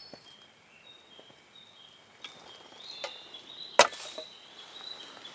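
Campfire wood crackling, with a few small ticks and one sharp, loud pop near the end, over a bird repeating short high calls.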